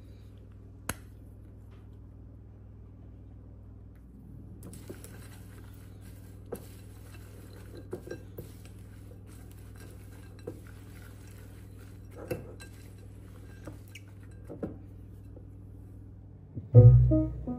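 Silicone spatula stirring a dry mix of cocoa, sugar and chopped walnuts in a glass bowl: soft scraping with scattered clinks against the glass, over a steady low hum. Near the end comes a heavy thump, then music starts.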